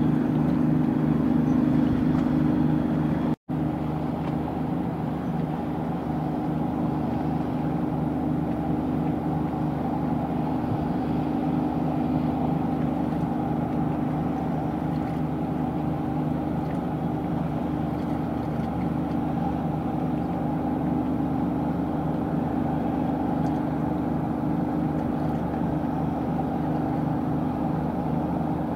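A ship's engine running with a steady low drone and hum, mixed with a wash of noise. The sound cuts out for an instant about three and a half seconds in.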